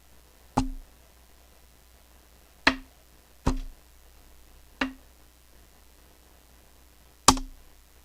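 Five sharp knocks, used as punch and body-slam sound effects for the fight, each followed by a brief low ring. They come at uneven intervals; the last is the loudest and the fourth the quietest.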